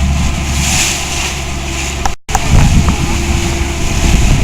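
A boat's engine running steadily with a low hum. About two seconds in, the sound cuts out for an instant and comes back rougher, with wind buffeting the microphone.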